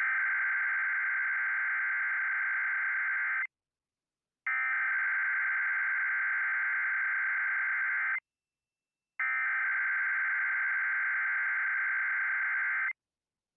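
Emergency Alert System SAME header: three identical bursts of digital data tones, each about three and a half seconds long, separated by about a second of silence. The bursts encode the alert's coded header, here for a test tornado warning, ahead of the spoken message.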